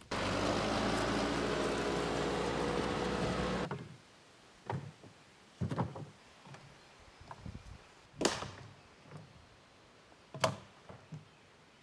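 A John Deere tractor's diesel engine running steadily, cut off abruptly after about three and a half seconds. Then dead branches are tossed into the tractor's steel loader bucket: four sharp knocks a second or two apart.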